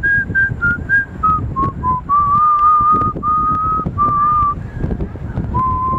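A person whistling a tune: clear single notes that step downward for about two seconds, then longer held notes, with wind rumbling on the microphone underneath.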